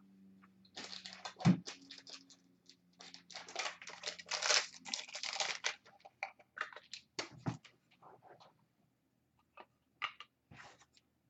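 Trading cards in hard plastic holders being handled: scattered clicks and knocks, the loudest about a second and a half in, with a spell of crinkly plastic rustling in the middle.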